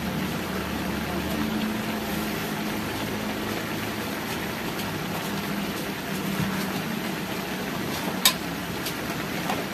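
Pork-intestine adobo simmering in a metal wok, a steady bubbling hiss with a low hum under it. About eight seconds in, a metal spatula clinks once against the wok.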